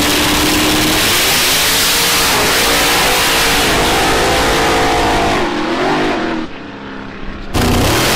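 Drag-racing engines running hard at full throttle under a wide hiss. The engine pitch rises and falls as the vehicles accelerate and shift. The sound dips about six and a half seconds in, then cuts back in loud.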